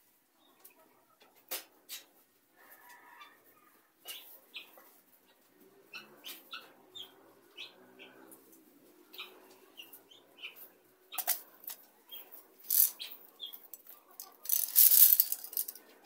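Helmeted guineafowl flock giving short, sharp chirping calls, scattered irregularly, with a loud flurry of wing flapping about a second long near the end.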